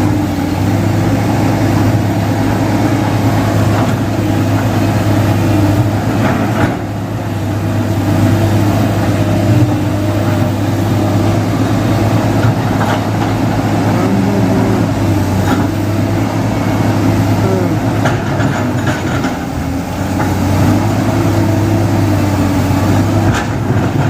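Heavy diesel engine of earth-moving machinery running steadily at a constant, loud level.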